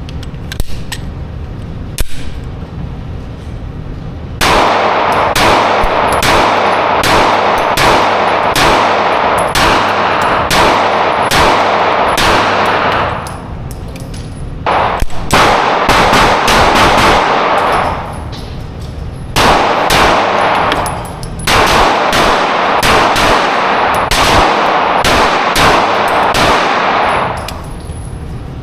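Rapid gunfire from a rifle fitted with a forced-reset trigger, in several long strings of fast shots, with metallic clanging over the shots.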